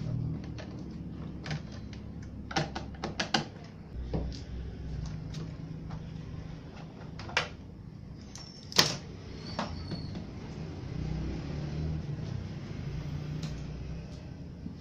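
Plastic back cover of an LED TV being unscrewed and lifted off: scattered clicks and knocks from the screwdriver, screws and plastic panel, with a quick run of clicks a few seconds in and a single louder knock past the middle as the cover comes away. A steady low hum sits underneath.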